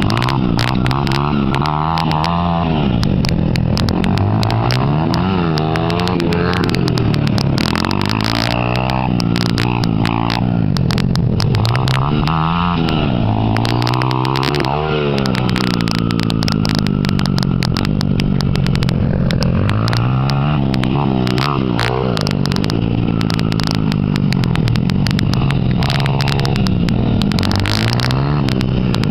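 Honda CRF80 and CRF100 four-stroke dirt bike engines revving up and easing off again and again as the bikes ride and jump, the pitch climbing and dropping every couple of seconds.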